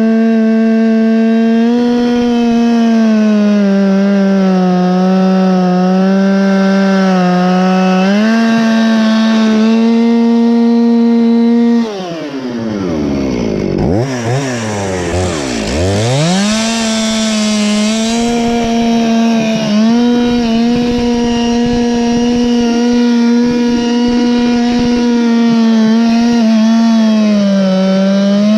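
Chainsaw running at high revs, cutting lengthwise through a log in freehand milling, its pitch wavering slightly with the load. About twelve seconds in the engine speed drops away almost to idle and climbs back to full revs within about four seconds, then it cuts on steadily.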